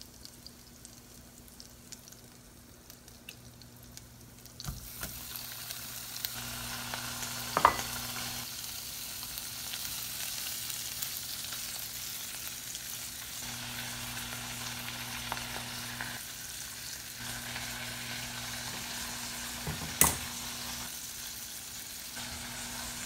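Arctic surf clam pieces frying with garlic in butter and peanut oil in a small nonstick saucepan, stirred with a silicone spatula: a faint sizzle that jumps to a much louder steady hiss about five seconds in as the clams hit the hot fat. Two sharp knocks, about eight and twenty seconds in.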